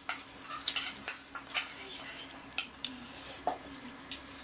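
Metal fork clinking and scraping against a glass bowl of instant noodles: a string of short, sharp clicks at irregular intervals.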